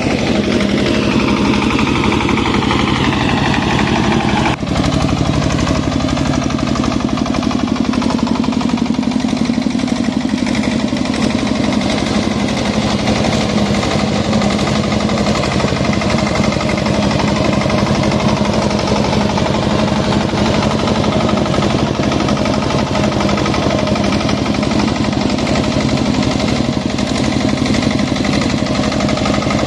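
A power tiller's single-cylinder diesel engine runs hard while its rotary tiller churns through dry soil, with an even, thumping firing beat. Its note falls over the first few seconds, then holds steady: it is carrying the dry-land tilling without labouring.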